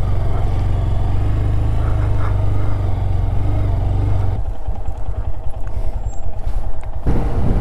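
Motorcycle engine running steadily as the bike rides over grass. The sound changes abruptly about halfway through and again near the end.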